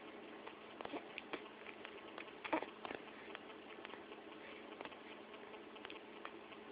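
Baby hiccuping: one short, faint hiccup about two and a half seconds in, among small scattered clicks.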